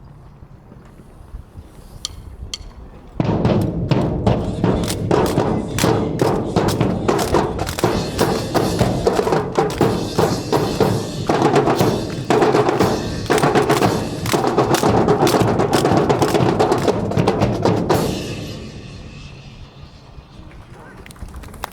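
Band drums playing a percussion cadence of snare and bass drum, starting suddenly a few seconds in and fading out near the end, with a few sharp clicks before it.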